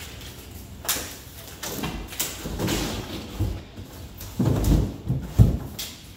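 Tall cardboard carton holding a locker cabinet being tilted and walked across the floor, its cardboard scraping and its corners knocking down with dull thuds. The heaviest thuds come about four and a half to five and a half seconds in.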